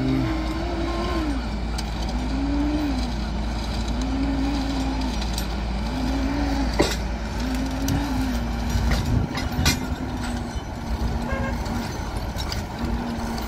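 Diesel engine of a rail-mounted magnet crane machine, revving up and dropping back repeatedly as it works, with a couple of sharp metallic knocks.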